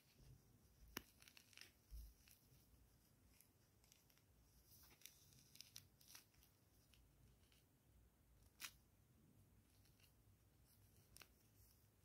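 An orange's peel being torn off by hand, faint: soft tearing and crackling of the rind with a few sharp snaps, the loudest about a second in and another about two-thirds of the way through, and a soft thump about two seconds in.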